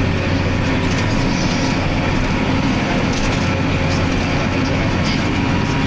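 Large farm tractor's diesel engine running steadily under load while pulling a seedbed combinator, with the implement's steel frame and tines rattling over the soil.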